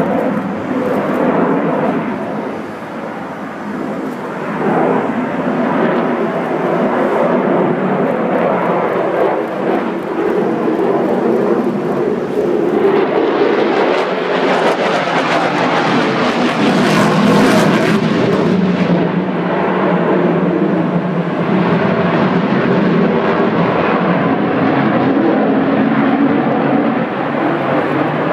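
Loud, continuous jet noise of a Sukhoi Su-35 fighter's twin turbofan engines as it flies its display manoeuvres. The sound swells brighter and harsher a little under halfway through, peaks a few seconds later, then eases again.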